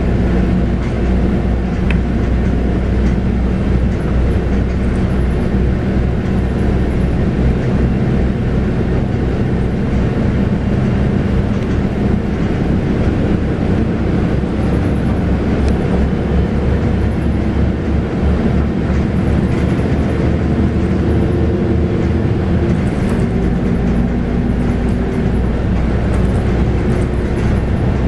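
Scania K280UB bus's 9.3-litre five-cylinder DC9 diesel engine running under way, a steady drone over low road and body rumble.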